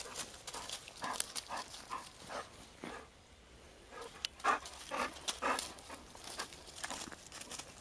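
Golden retriever, wet from paddling in a stream, panting hard in quick short breaths, several a second, loudest about halfway through.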